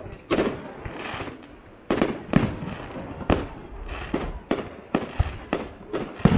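Aerial firework shells bursting in quick succession: about a dozen sharp bangs at irregular intervals, coming closer together in the second half, with crackling between them.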